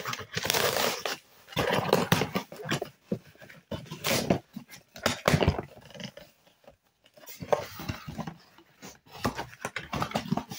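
Irregular rustling and tearing of packaging, in short bursts with pauses, as a tripod is unboxed.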